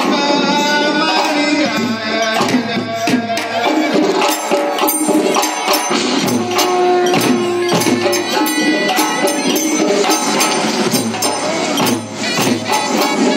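Loud music with busy percussion, many sharp strikes over held instrumental or vocal notes, accompanying a costumed dance.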